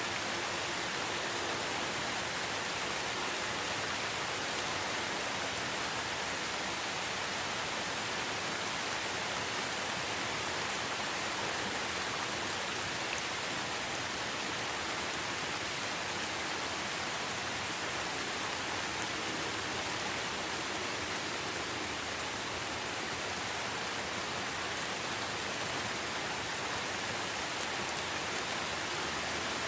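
Steady rain falling, an even hiss with no let-up and no single drops or other sounds standing out.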